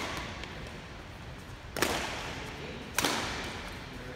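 Badminton rackets hitting a shuttlecock in a rally: two sharp strikes about a second apart, each ringing on in the hall's echo.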